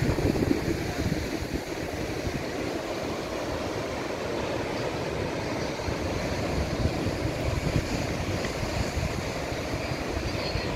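Wind buffeting the microphone over the steady rush of surf breaking on a rocky shore.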